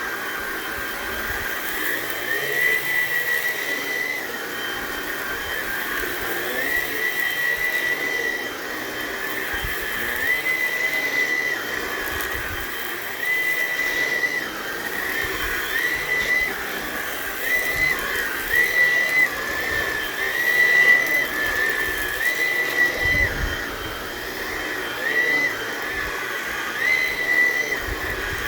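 Hoover ONEPWR Blade cordless stick vacuum running on thick high-pile carpet with the brush bar at carpet speed, its high motor whine dropping and rising again every second or two.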